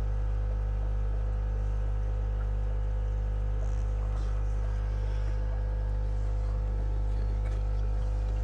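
Steady electrical hum with a low buzz and many steady overtones, the constant drone of running fish-room equipment such as air pumps and filters.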